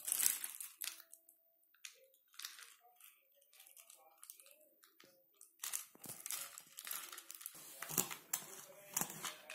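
Small plastic toys being handled: an irregular run of clicks, rattles and rustles, with louder knocks near the end.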